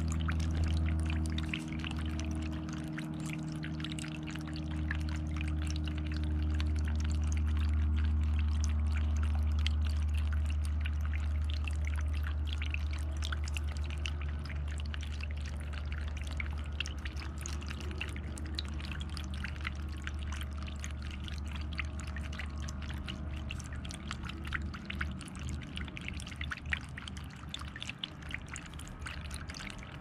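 Water trickling and splashing over the stones of a small birdbath fountain, with a low steady hum underneath.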